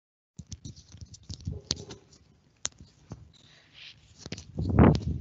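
Computer mouse clicks and small scattered handling noises close to the microphone, with a louder muffled puff near the end.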